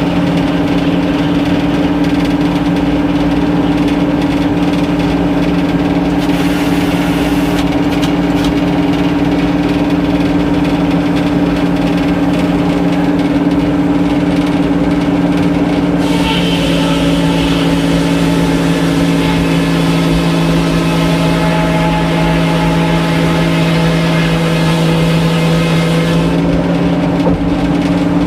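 Sawmill machinery running steadily with a loud, even drone. About halfway through the sound grows brighter, with higher tones added.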